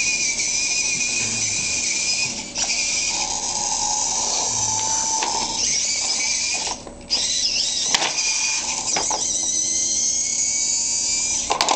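Small tracked robot's electric drive motors and servos whining at high pitch, rising and falling as it drives and swings its arm to lift a block, over a steady high tone.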